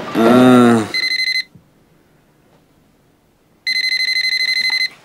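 A man's yell, cut off within the first second, then a telephone ringing: two short electronic trills, each a rapid pulsing tone, about two seconds apart.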